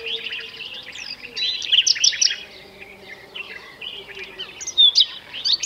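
Common nightingale singing: a varied run of rapid repeated notes, trills and short clear whistles, loudest in two bursts about two seconds in and near the end, with a softer stretch between.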